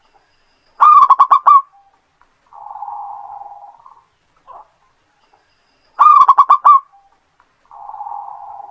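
Zebra dove (perkutut) singing its cooing song twice. Each phrase is a quick run of about five loud, clipped coo notes followed by a softer, longer rolling trill.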